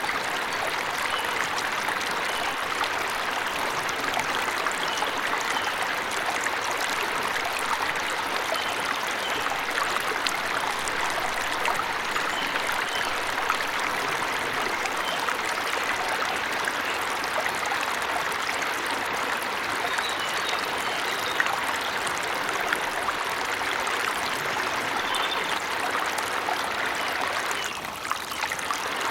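Waterfall water rushing steadily, with a few faint, short bird chirps now and then. The rush dips briefly near the end.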